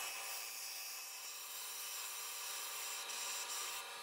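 Vertical bandsaw cutting a thin 20 gauge steel sheet along a curved line: a steady high hiss with faint whining tones, easing slightly near the end as the cut finishes.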